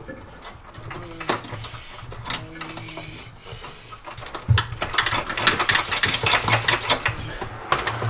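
Wiring harness and its plastic connectors clicking and rattling against the van's plastic interior trim as the harness is pulled and worked through a tight spot. The clicks are scattered at first and come thick and fast from about halfway.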